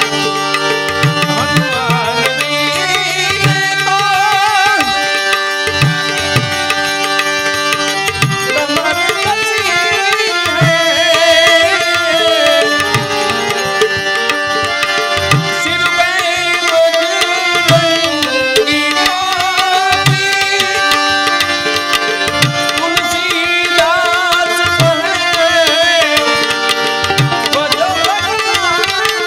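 Gujarati santwani bhajan music: tabla playing a steady rhythm under sustained melodic instruments.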